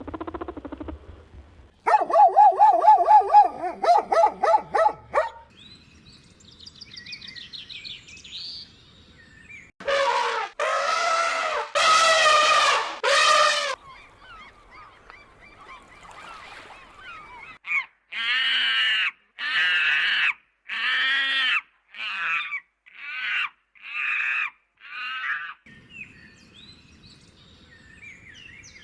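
Farm poultry calling in separate groups. There is a quick run of calls near the start, four long, loud calls about ten seconds in, and a series of about eight calls that get shorter toward the end.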